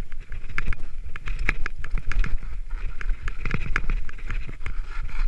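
Mountain bike riding down a bare granite rock slab: the tyres rumble over the rock and the bike rattles, with frequent sharp clicks and knocks.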